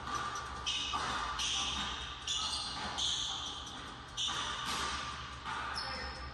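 A basketball being dribbled and bounced on a hardwood indoor court during a one-on-one game, with a series of separate sudden sounds about a second apart.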